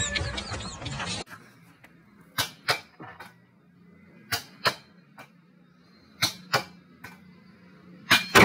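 A ball being handled and struck: sharp slaps in pairs about a third of a second apart, four pairs at roughly two-second intervals. Before them, a second of louder noise from the previous clip cuts off abruptly.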